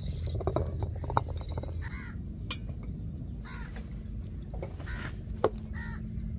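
Crows cawing about four times, over the low rumble and scrape of a stone roller rolled across a wet ammi kal grinding slab, with two sharp knocks, one about a second in and one near the end.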